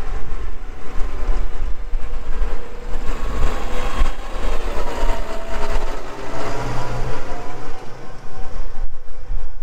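Tractor engine running as the tractor drives with its mowers mounted, a heavy rumble throughout with a steady whine and some rattling over it.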